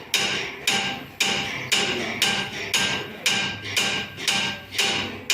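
Hand hammer striking copper metalwork in a steady rhythm, nearly two blows a second, each blow leaving a short metallic ring.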